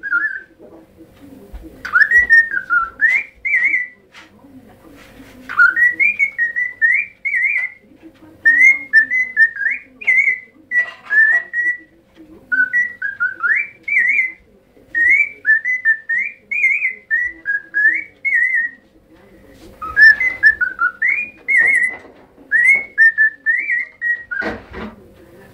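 Pet parrot whistling a tune: a string of short whistled phrases, each a quick run of gliding notes up and down, with brief pauses between them.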